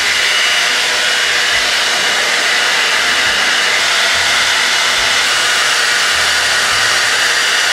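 Hand-held hair dryer running at a steady, loud blow, with a faint even whine from its motor.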